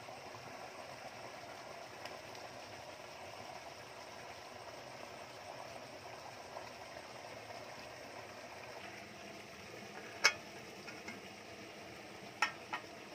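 Hands working on a small petrol water pump that is not running: a sharp click about ten seconds in, then two lighter clicks near the end as the fuel tank cap is twisted off. Under them runs a steady low outdoor hiss.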